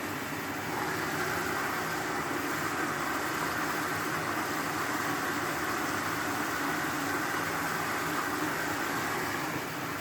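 Ariston Margherita washing machine running at the start of a 60° cottons cycle: a steady whooshing hum that picks up about a second in and eases off near the end.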